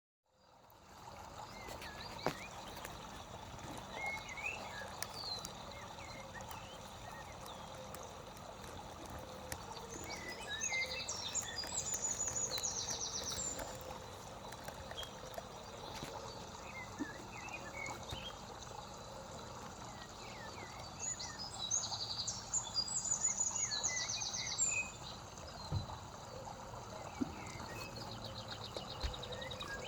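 Running water, a steady rush, with birds chirping over it. Twice, about a third of the way in and again about two thirds in, a bird sings a song of scattered notes ending in a fast, high trill.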